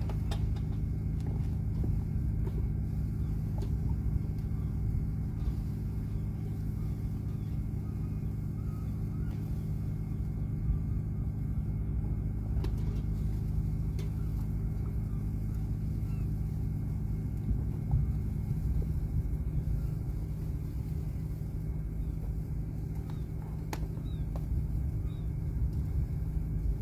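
A large engine running steadily beside a moored ship, a low rumble with a steady hum; one tone in the hum drops out about two-thirds of the way through.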